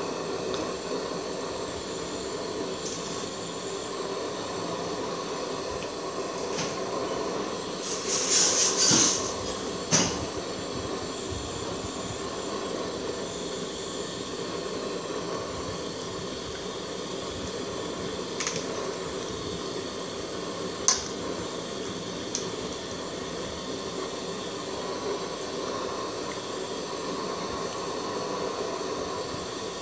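Steady hiss of a stove burner heating an aluminium pot of water and papaya, with a short louder burst about eight seconds in and a few sharp knocks of a ladle against the pot.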